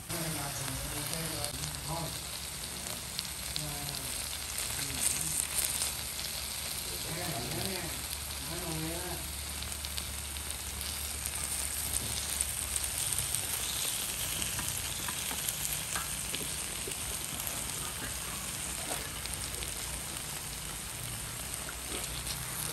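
Buffalo meat sizzling steadily on a hot stone grill plate.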